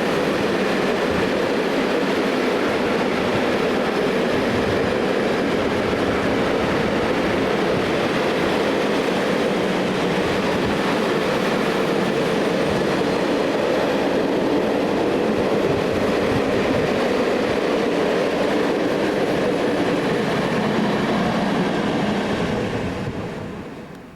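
Freight train wagons rolling past on the rails: a loud, steady noise of wheels on track, which drops away sharply near the end.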